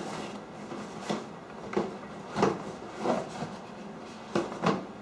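Cardboard boxes and packaging being handled: irregular short knocks, scrapes and rubs as small boxed parts are lifted out of a drone's packing box.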